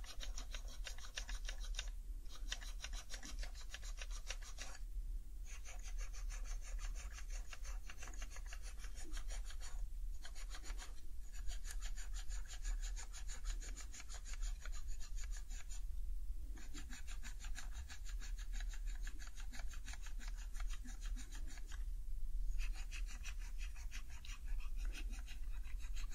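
An alcohol wipe rubbed quickly back and forth over the plastic keycaps of an HHKB Professional 2 keyboard, giving a fast, scratchy rubbing. It comes in runs of a few seconds with brief pauses between them.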